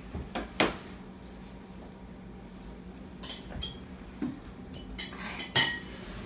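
A small fork clinking and tapping against a plastic plate and tabletop: a handful of sharp taps, the loudest about half a second in and again near the end.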